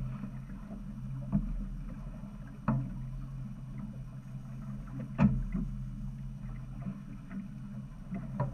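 Fishing boat's engine running with a steady low hum, with four sharp knocks now and then, the loudest about five seconds in.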